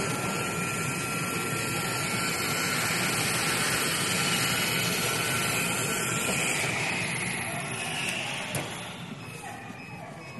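CNC flatbed fabric cutting machine running as its cutting head travels over blackout fabric: a steady rushing noise with a thin, steady whine. About seven seconds in it drops to a quieter hiss, with a single click shortly after.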